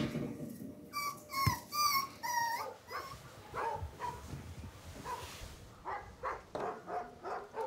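Young puppy whining and yelping: a quick run of short, high squeaks about a second in, then fainter whimpers.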